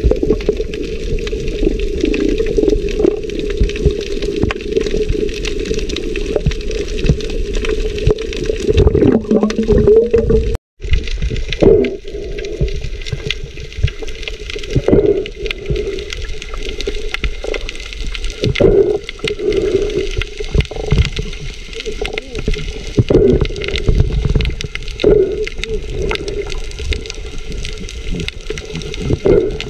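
Muffled water sloshing and gurgling heard underwater, through a submerged camera, with irregular surges of swirling water. The sound drops out briefly about ten seconds in.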